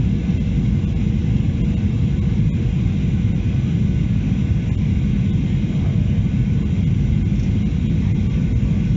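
Steady in-flight cabin noise of a Boeing 737-800 heard from a window seat over the wing: a deep rumble of its CFM56-7B engines and airflow, with a faint steady hum above it.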